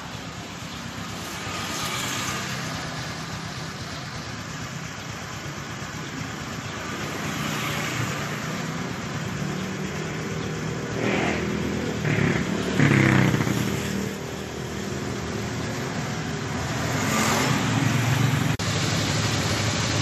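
Honda Supra X 125's single-cylinder four-stroke engine running, revved up a few times around the middle. The engine has just been rebuilt with oversize (OS 100) pistons after an overbore.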